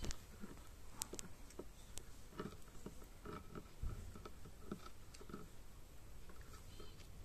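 Shiba Inu puppy gnawing on the edge of a wooden plank: quiet, irregular little clicks and scrapes of teeth and claws on wood.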